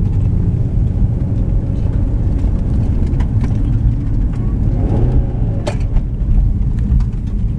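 Car engine and road noise heard inside the cabin while driving, a steady low rumble, with a sharp click about two thirds of the way through.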